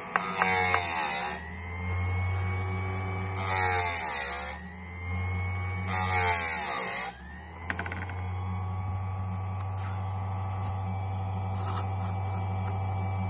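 Electric chainsaw chain sharpener: its grinding wheel is brought down on a tooth three times, each a short grind in which the motor's pitch dips and recovers, then the wheel runs on steadily with a hum.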